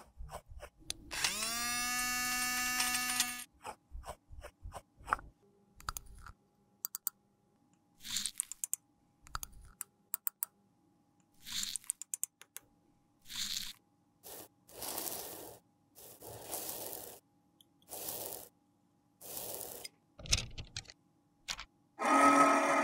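A small electric grinder runs for about two seconds, spinning up, as it crushes glitter eyeshadow. Then comes a run of short scrapes and clicks from a metal spatula pushing the crumbled powder into a metal pan. Near the end there is a brief, loud crunching grind as the powder is compressed.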